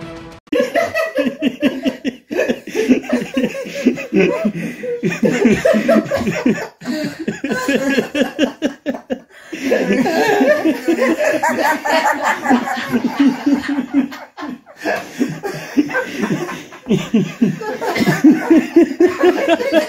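People laughing hard in long bursts, broken by a few brief pauses.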